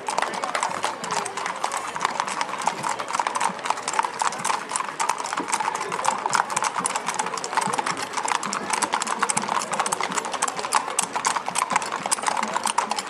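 Hooves of several horses walking on an asphalt street: a steady, dense clip-clop of many overlapping hoofbeats.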